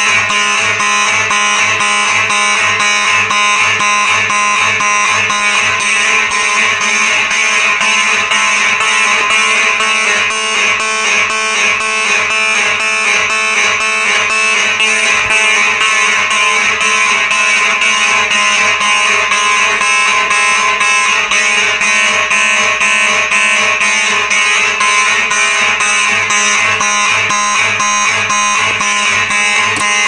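Several Simplex 4903 electromechanical fire alarm horns sounding together on march time: a loud buzzing blare pulsed evenly on and off at about two beats a second.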